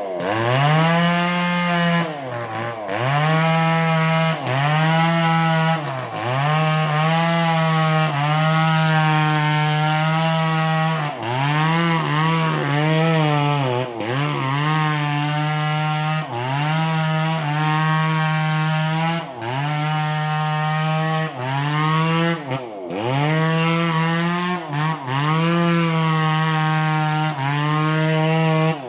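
Two-stroke chainsaw running at high revs while cutting into a durian tree trunk. The engine pitch sags briefly and climbs back every second or two as the bar is pressed into the wood and eased off.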